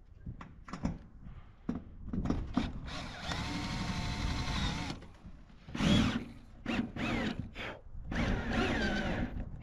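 Makita cordless drill driving roofing screws through a steel roof sheet: a steady run of about two seconds that slows as the screw seats, then a loud knock and two shorter, wavering runs, with clicks and knocks of handling between them.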